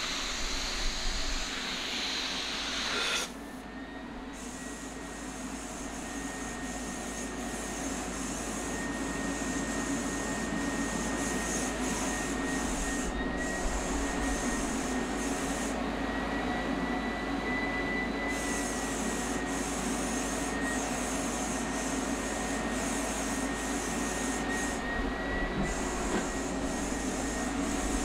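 HVLP turbine paint-spraying system running steadily, a constant rush of air through the hose and spray gun with a steady high whine. The sound changes abruptly about three seconds in.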